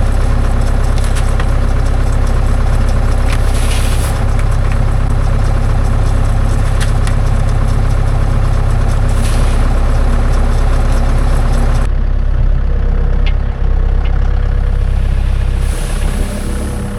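Farm tractor's diesel engine running steadily at low revs. About twelve seconds in, the hiss on top of the engine sound drops away abruptly while the engine note carries on.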